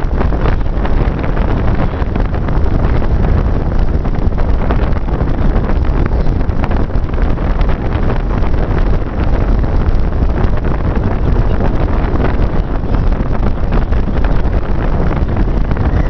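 Strong wind buffeting the microphone: a loud, steady, low rumble.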